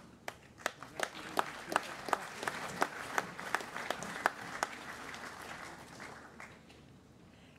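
Audience applauding, with one person clapping close by about three times a second over the first four and a half seconds; the applause dies away near the end.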